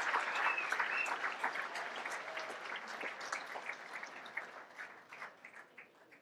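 Audience applauding: many hands clapping together, thinning out and fading away over the few seconds.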